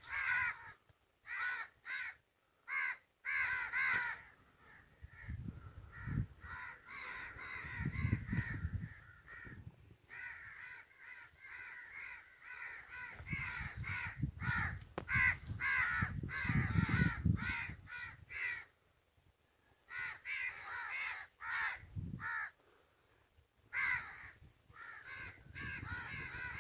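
Crows cawing over and over, harsh calls in quick runs separated by short gaps. A low rumbling noise swells up twice, about a quarter of the way in and again around the middle.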